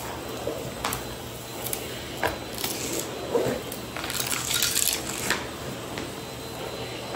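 A Numatic Henry canister vacuum running steadily while its floor tool is pushed over a rug, with grit and debris crunching and clicking up through the nozzle and wand: scattered clicks early on, then a dense burst of crackling about four seconds in.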